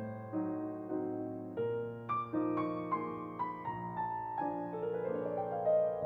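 Background music: a solo piano playing slow classical music, the melody stepping downward over the last few seconds.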